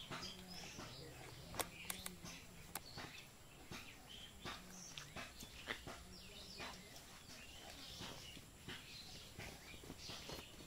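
Faint outdoor ambience: scattered bird chirps over a low hum, with a few sharp clicks about two seconds in.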